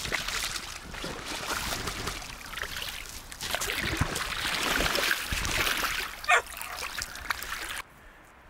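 Shallow river water splashing and sloshing as a large Atlantic salmon thrashes at the edge and an angler wades in to grab it. The sound cuts off suddenly near the end.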